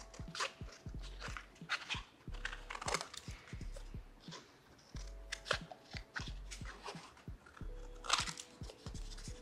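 Scissors snipping through paper in a series of short, crisp, irregular cuts, with paper rustling as the piece is turned.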